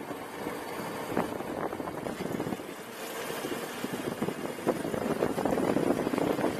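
Razor Ground Force electric go-kart driving on asphalt: the motor and chain drive whirring with a faint steady whine, over tyre rumble and frequent rattles from the chassis. It gets louder in the last couple of seconds.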